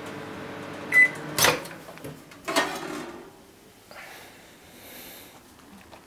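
Microwave oven running with a steady hum, then a short beep about a second in as a panel button is pressed, and the door pops open with a loud clack, after which the hum dies away. A second clatter follows as the plate is handled, then soft rustling of steamed cabbage leaves.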